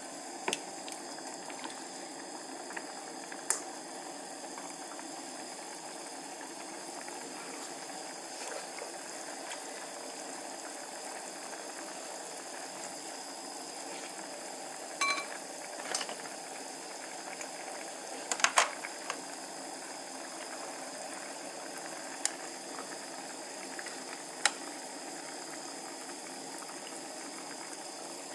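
Sesame-oil chicken gizzard broth simmering in an aluminium pan, a steady bubbling hiss, with scattered light clicks and knocks from utensils. About halfway through, a rice cooker's control panel gives a short beep.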